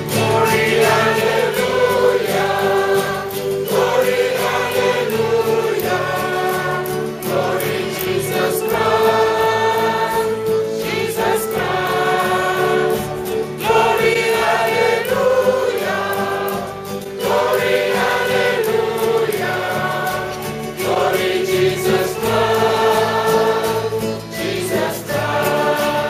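Mixed choir of men's and women's voices singing a hymn.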